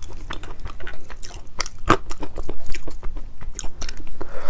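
Dry, boiled-then-sun-dried peanuts in the shell being cracked open by hand and the kernels chewed close to the microphone: a quick run of sharp crackling snaps and crunches, with one louder snap about two seconds in.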